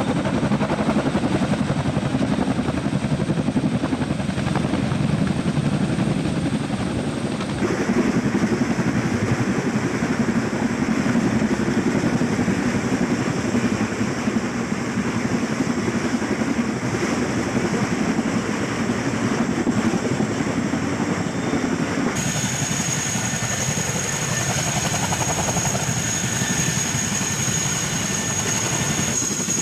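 MH-47G Chinook tandem-rotor helicopter running, a loud steady rotor and engine noise. The sound changes abruptly twice. In the last part a steady high whine runs over the rotor noise.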